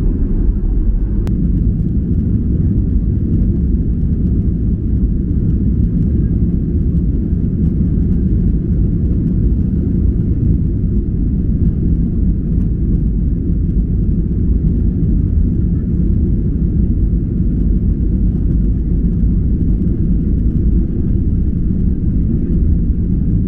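Boeing 737-800's CFM56 turbofan engines at takeoff thrust during the takeoff roll, heard from inside the cabin behind the wing: a steady, loud, deep roar.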